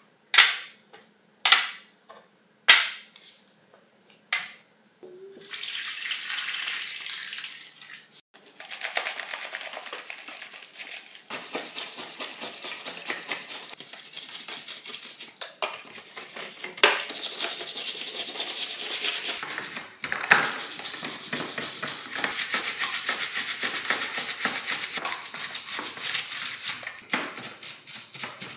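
Plastic housing pieces of a National EZ7410 cordless screwdriver set down into a stainless steel tray with a few sharp clacks. From about five seconds in, bristle brushes scrub the parts in soapy water in the tray: a steady rapid scratching with a few short breaks.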